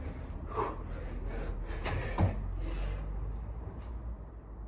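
A person doing burpees: several thuds of hands and feet landing on a floor mat, with hard breathing between them.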